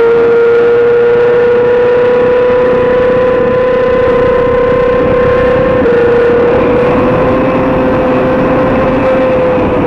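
2007 Yamaha R6's inline-four engine screaming at high revs under full throttle, pitch climbing slowly and dropping sharply about six seconds in as it shifts up a gear, over steady wind rush. The pitch eases off near the end.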